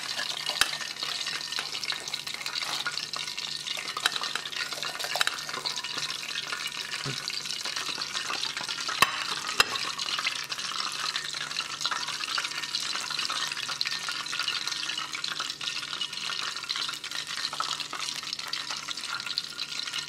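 Hot cooking oil in an electric deep fryer sizzling steadily, with a few sharp clicks near the start and about nine and ten seconds in.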